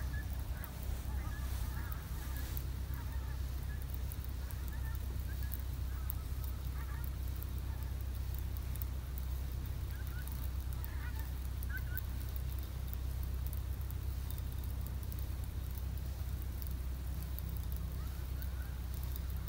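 Geese honking in the distance, a scatter of short calls over a steady low rumble.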